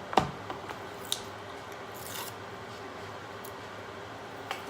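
Tabletop handling noises while making slime: a sharp click just after the start, a few lighter clicks, and a short rustling rub about two seconds in, with another click near the end.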